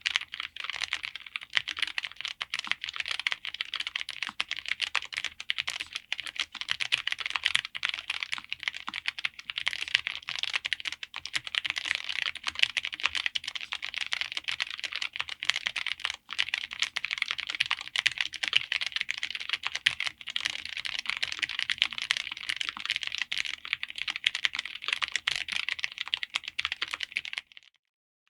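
Fast, continuous typing on a Lofree Flow84 low-profile mechanical keyboard fitted with Kailh Choc V2 Red linear switches: a dense run of light key clacks that stops shortly before the end.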